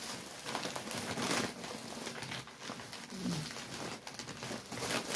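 Plastic snack wrappers crinkling irregularly as they are handled and sorted through.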